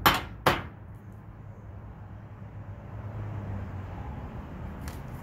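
A deck of tarot cards being shuffled by hand, with two sharp taps about half a second apart at the start. Under it runs a steady low rumble.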